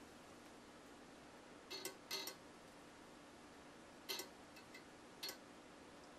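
Quarter-inch steel BBs dropped one at a time into an upright aluminium magazine tube, each landing with a sharp metallic click, some as quick double clicks, a second or more apart.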